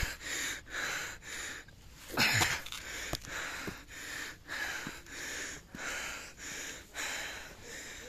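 A man's heavy, rapid breathing close to the microphone, about two breaths a second, with a louder breath about two seconds in: panting from the exertion of climbing a steep rock slope.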